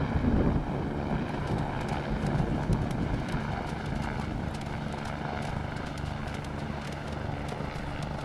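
Helicopter flying overhead: a steady low drone of rotor and engine, loudest in the first second, then settling to an even level.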